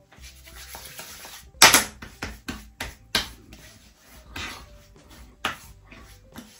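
Hands slapping fougère aftershave onto a freshly shaved face: about half a dozen sharp slaps at uneven intervals, the loudest about a second and a half in, with faint rubbing between them.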